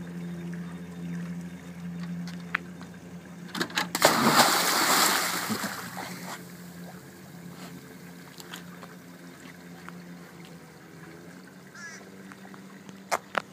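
A golden retriever jumps off a wooden dock into lake water with a loud splash about four seconds in, then swims off with fainter sloshing and lapping. A steady low hum runs underneath.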